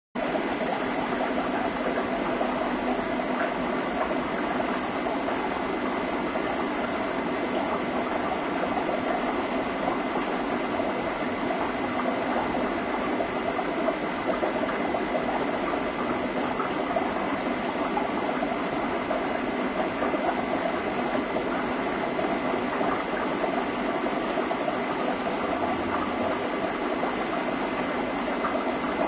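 Aquarium filter running: a steady rush of moving, bubbling water with a faint constant hum and whine from its pump motor.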